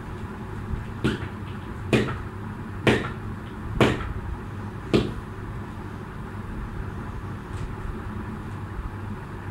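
Jump rope slapping the floor five times at about one-second intervals, sharp clicks that stop about halfway through, over a steady low room noise.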